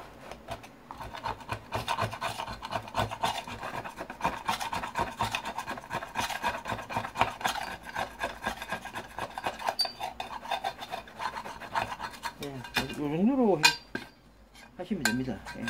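Rapid, continuous scraping as caked residue is rubbed off the round metal lid plate of an old pressure rice cooker being stripped for scrap. The scraping stops about 12 s in. A short wavering tone follows, then a few sharp clicks near the end.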